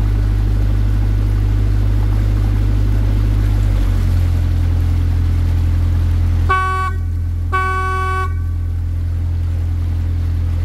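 Water taxi's engine running with a steady low drone that changes note about four seconds in, then the boat's horn sounding twice, the second toot a little longer.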